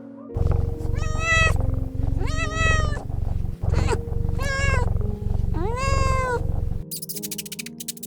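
A domestic cat meowing four times, each meow rising and then falling in pitch, over a loud low pulsing rumble that stops near the end. Background music plays underneath.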